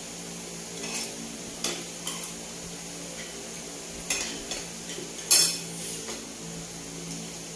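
Cutlery clinking and scraping against a dish during a meal, in about eight scattered strikes, the loudest a little past five seconds in, over a steady low hum.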